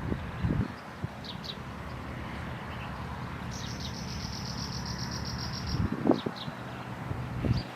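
Small songbird calling: a few short, high, falling chirps and a rapid chattering trill of about two seconds in the middle, over a steady outdoor hiss, with a few dull low thumps.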